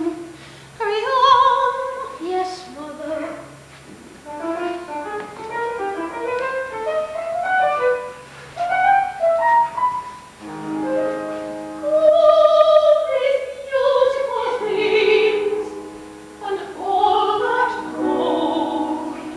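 Operatic singing with instrumental accompaniment: a solo voice carries a melody, and steady held chords come in under the voice about ten seconds in.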